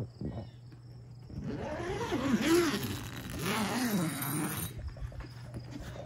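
Zipper on a fabric tent door being drawn open in two long pulls, over a steady low hum.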